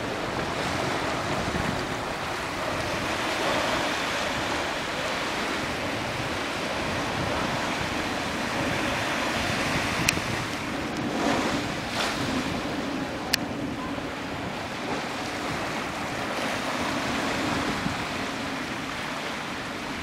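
Small surf washing up the sand at the water's edge, a steady rushing hiss, with wind buffeting the microphone. A few sharp clicks stand out about halfway through.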